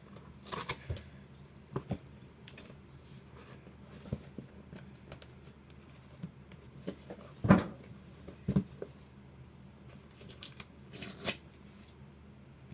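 A cardboard shipping box being opened by hand: scattered cutting, tearing and rustling, with a few knocks, the loudest about seven and a half seconds in.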